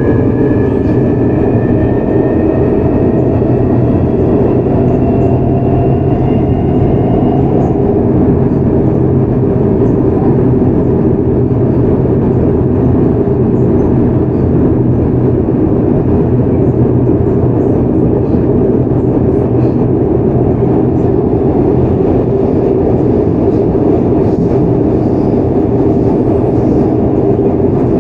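Seoul Metro 4000 series subway train running, heard from on board. For the first several seconds its GEC Alsthom GTO-VVVF traction equipment whines in thin tones that rise in pitch as the train picks up speed. The whine then fades, leaving steady rail and running noise with a low hum.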